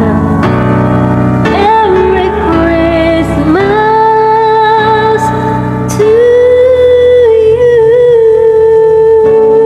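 Solo voice singing a Christmas song over piano accompaniment. About six seconds in, the voice gets louder and holds one long note with a slight waver.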